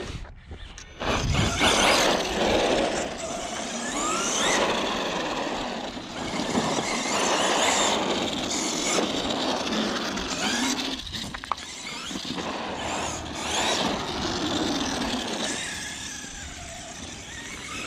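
Arrma Kraton EXB 1/8-scale RC truck being driven on a 4S battery: its Castle 1717 brushless motor whines up and down in pitch with the throttle over a continuous rough rushing noise.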